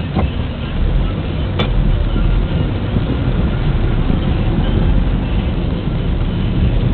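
Low, steady road and engine rumble heard from inside a car's cabin as it moves slowly in heavy traffic, with a brief sharp click about one and a half seconds in.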